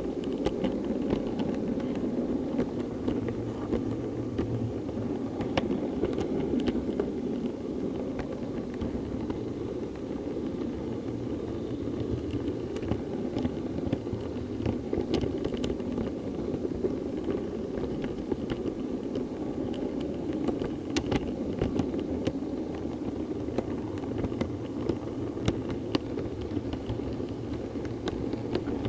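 Model 08 diesel shunter running along the track, heard from a camera riding on it: a steady motor and wheel rumble, with irregular sharp clicks as the wheels cross rail joints and points.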